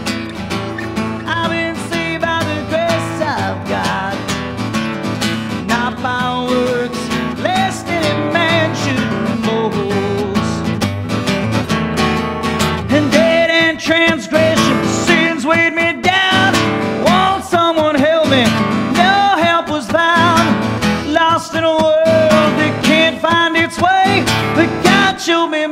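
Acoustic guitar strummed steadily; about halfway through, a man's singing voice comes in over it and the music grows louder.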